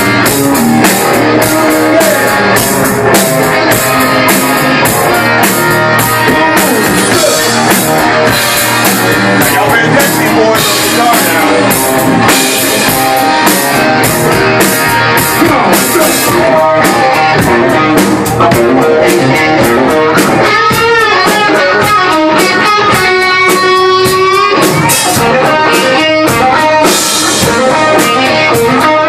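Live rock band playing an instrumental passage: electric guitars over a drum kit, with a lead guitar playing bent, wavering notes in the second half.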